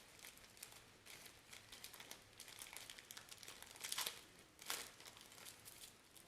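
Faint crinkling and rustling of packaging as a small accessory pouch is opened and handled, with two louder crinkles about four seconds in and just before five seconds.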